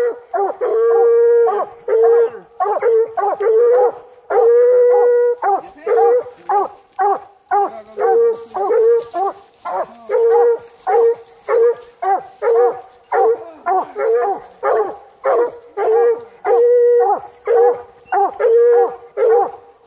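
Coonhound baying at a tree: a steady chop bark of about two barks a second, with a few long drawn-out howls mixed in. It is the hound's tree bark, the sign that a raccoon is treed.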